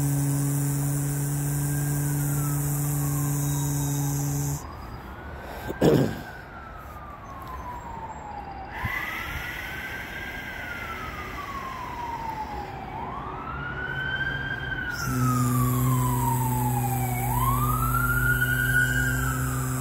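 A man's steady low buzzing hum, held on one pitch, stops after about four seconds and starts again about fifteen seconds in. In between and under it, an emergency vehicle siren wails, rising and falling about every four seconds and growing louder. A short, loud whoosh comes about six seconds in.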